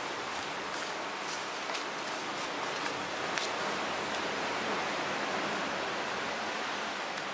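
Steady rushing noise with no pitch, with faint light ticks and rustles during the first few seconds.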